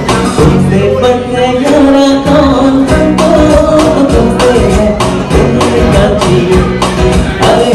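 Live acoustic and electric guitar duo playing an instrumental passage: steady rhythmic guitar strumming with a melody line moving above it.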